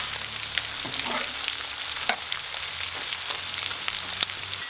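Pork, beetroot, onion and garlic frying in a cast-iron pan: a steady sizzle with scattered crackles and a few sharp clicks.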